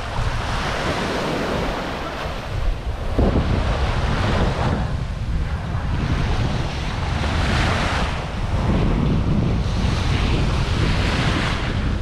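Small waves washing in and out on a sandy beach, the hiss swelling and fading every two to three seconds, with wind buffeting the microphone as a steady low rumble.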